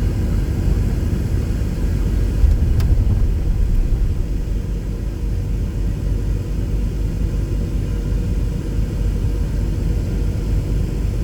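Steady low rumble of a car heard from inside its cabin, with one faint click about three seconds in.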